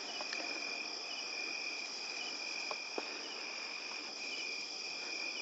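Night chorus of crickets trilling steadily, with a second insect chirping in short double notes about once a second. A couple of faint clicks come about three seconds in.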